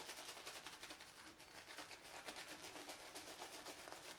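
Boti screw-type shaving brush working shaving soap into a lather: fast, rhythmic wet swishing strokes, several a second, with a lather that is on the dry side.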